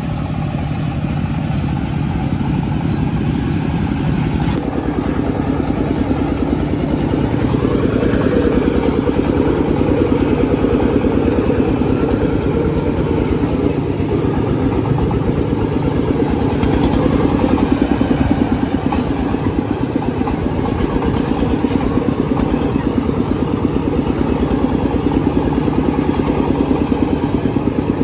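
Stationary diesel engine of a homemade tractor running with a fast, even chugging. It speeds up about four seconds in, then holds steady and a little louder.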